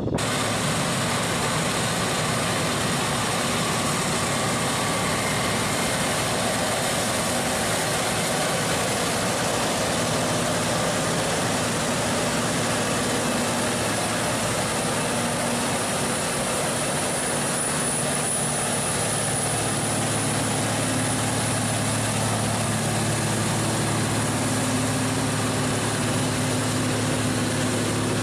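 A large engine running steadily under a broad rushing hiss, its low hum growing stronger about two-thirds of the way through.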